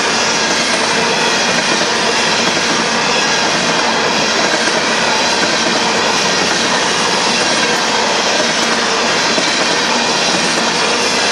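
Empty covered hopper cars of a grain train rolling past. Their steel wheels clatter loudly and steadily on the rails.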